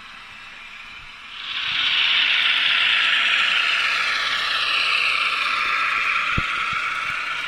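Kato N scale Chicago and North Western 400 train running close by on its track, the motor and wheels on the rails making a steady whir that grows loud about a second in. There is a single click near the end.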